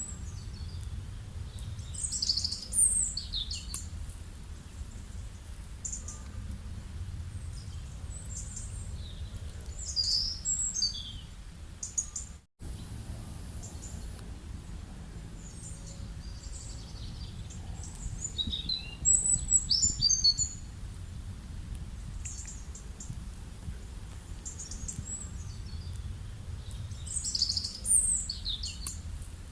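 Songbirds chirping and calling in short bursts every several seconds, over a low steady rumble of background noise. The sound drops out briefly about halfway through.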